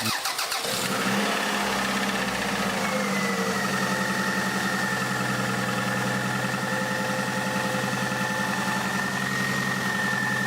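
Toyota Highlander's 2.4-litre four-cylinder engine idling steadily, with a fast regular knock. The knock is diagnosed as a worn piston pin knocking in the third cylinder.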